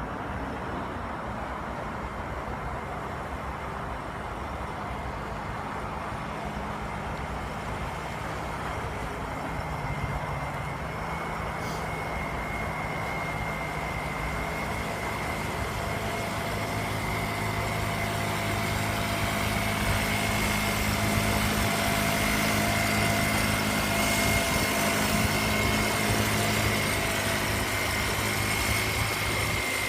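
Small boat's engine running steadily, a low hum with a high whine above it, growing gradually louder.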